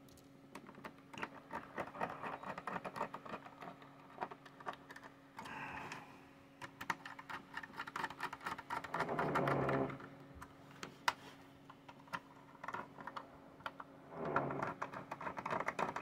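A precision screwdriver turning the small bottom-cover screws of an Intel NUC mini PC, making rapid light clicking and ticking of the bit in the screw heads, over a steady low hum. A few short louder passages break in.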